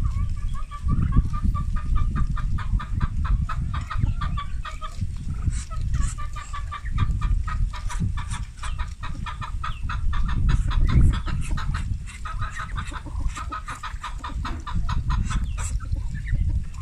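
Chickens clucking while feeding: long, fast runs of short repeated clucks that pause briefly twice, over a low rumble.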